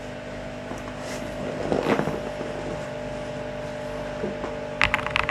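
A steady humming drone with a swell about two seconds in. Near the end, quick clicking of mechanical keyboard switches begins.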